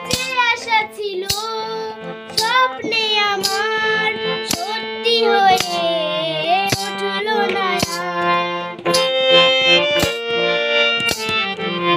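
A girl singing a Bengali song melody over a backing track of sustained chords and a steady percussion beat.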